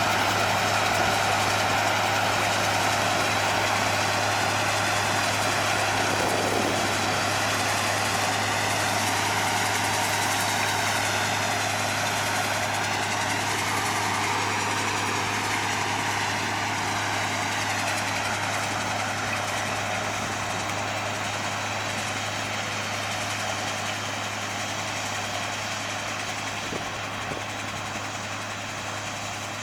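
Massey Ferguson 510 combine running steadily in the field: a constant engine drone with machinery hum, slowly getting quieter over the stretch.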